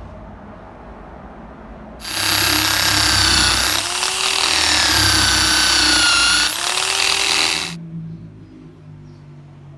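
Handheld power tool spinning a brass wire brush against the rusty cast-iron frame of a hand punch, a loud motor whine with a high overtone. It starts abruptly about two seconds in, its pitch dips and rises in the middle, and it stops abruptly about two seconds before the end.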